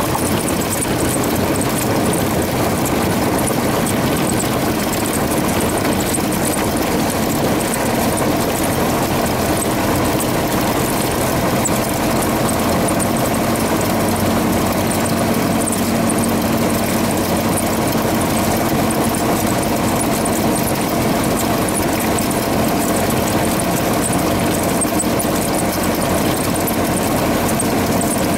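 Cessna 172RG's four-cylinder Lycoming engine and propeller running steadily at low power, heard from inside the cockpit.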